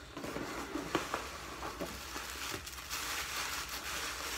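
Tissue paper and plastic packing crinkling and rustling as a wrapped item is pulled out of a cardboard box, with a few light knocks.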